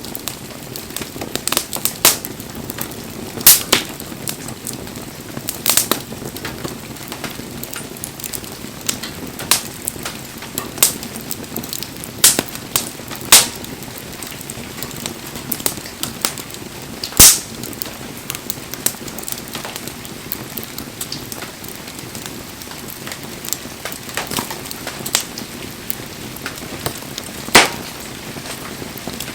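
Wood bonfire crackling, a steady hiss broken by sharp pops from the burning firewood every second or so at irregular intervals; the loudest pop comes about 17 seconds in.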